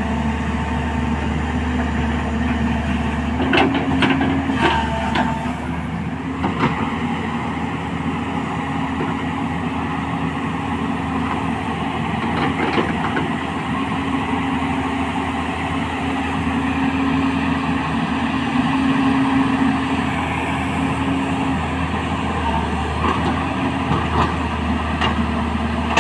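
A 210LC crawler excavator's diesel engine running with a steady hum, its low note shifting slightly a few times as the load changes. A few sharp knocks stand out, about 4, 6 and 12 seconds in.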